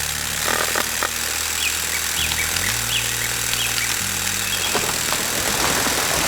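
A heavy farm machine's engine runs steadily under a loud, even rushing noise, with a shift in its low drone about two and a half seconds in. Faint bird chirps sound in the background.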